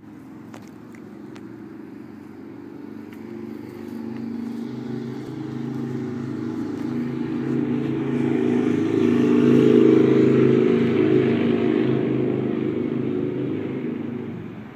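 A motor vehicle's engine running with a steady low hum. It grows louder to a peak about ten seconds in, then eases and cuts off sharply near the end.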